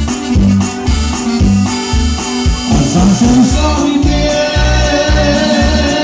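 Live norteño dance music: accordion melody over a bass line with a steady dance beat, with a short run of notes about halfway through.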